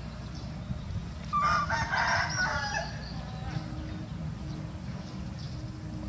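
A rooster crowing once, starting about a second and a half in and lasting about a second and a half.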